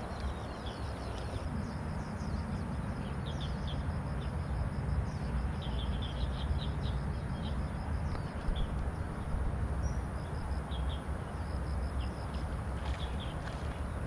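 Birds chirping, short high calls coming on and off throughout, over a steady low background rumble.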